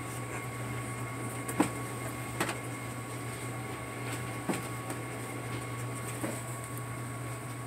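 A steady low electrical hum with faint thin high whines above it, and a few soft taps scattered through.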